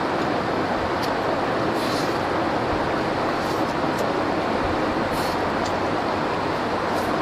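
A steady rushing noise, with a few faint, short slurps as a person sucks long strands of food into his mouth.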